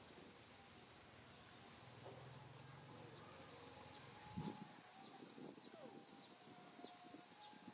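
Steady chorus of insects, an even high-pitched hiss, with a few faint short calls over it and a soft thump a little past the middle.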